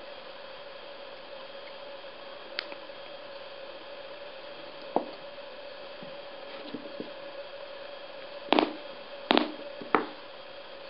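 A steady faint hum with a few light clicks and knocks, then three sharp knocks in quick succession near the end.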